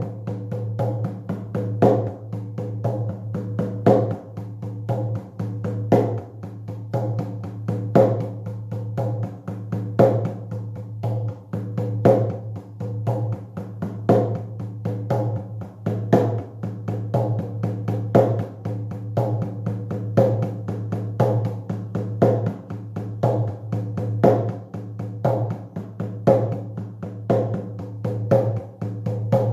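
Shamanic drum beaten in a steady, fast, even rhythm, with a louder accented stroke about every two seconds over a steady low hum: a trance drumming beat.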